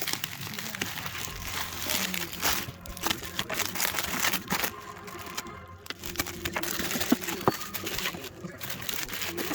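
Packaging crinkling and rustling as it is handled, with scattered clicks and taps.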